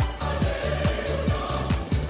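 Music with a steady, driving kick-drum beat, a little over two beats a second.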